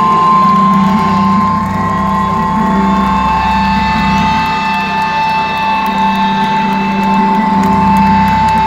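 Loud concert sound system holding a steady high ringing tone, which slips slightly lower in pitch about halfway through, over a low drone and crowd noise.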